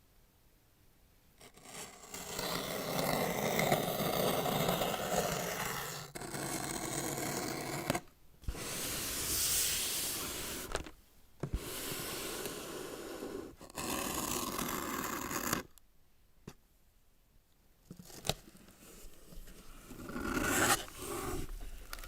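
Packaging being torn open and scraped: several long tearing, rasping strokes one after another, then quieter handling with a few small clicks and a short rustle near the end.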